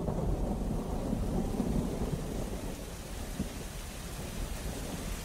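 Thunder rumbling over steady rain, the low rumble slowly dying away.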